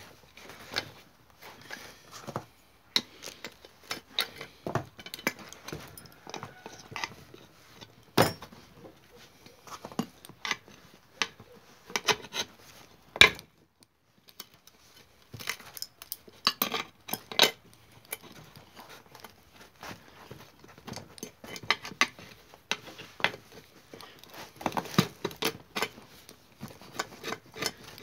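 Irregular metallic clinks and knocks of an adjustable wrench and hands working a wheelbarrow wheel's metal rim, hub and tyre. A sharp knock about thirteen seconds in is the loudest.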